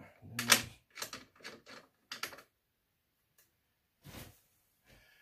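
Irregular clinks and knocks of metal hardware being handled while a bolt and mounting plate are worked off a push mower's underside: a quick cluster of short clicks in the first couple of seconds, the loudest about half a second in, then a few fainter ones.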